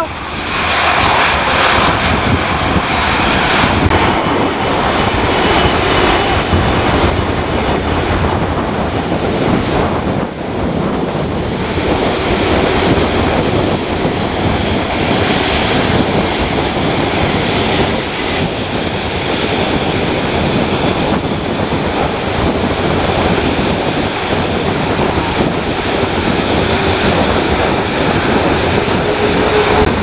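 Jet engines of a Virgin Atlantic widebody twin-jet airliner running as it taxis and turns on the runway: a loud, steady jet roar with a thin high whine that comes in about halfway through.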